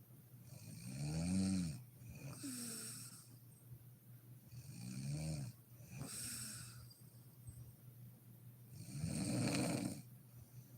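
A sleeping woman snoring: three snores about four seconds apart. The first two have a clear pitch and are each followed by a softer breath out; the last is rougher, without a clear pitch.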